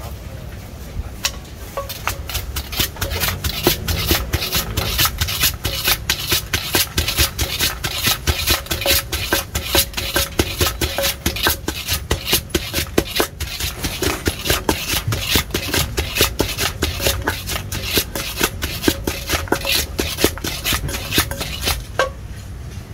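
Wooden pestle pounding chillies in a large papaya-salad mortar, steady knocks about three a second, with a spoon scraping and turning the mix between strokes. The pounding stops near the end.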